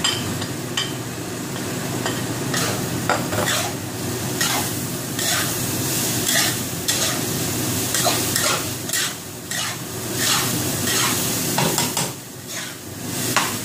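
Spatula scraping and turning raw rice in a stainless honeycomb wok: repeated irregular scrapes, about one or two a second, over the rice sizzling in hot oil. A steady low hum runs underneath.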